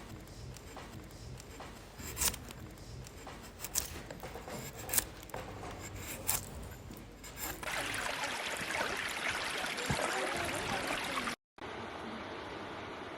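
Scattered sharp clicks and snaps over a low rumble, then about four seconds of running water. After an abrupt cut, a steady wash of noise follows.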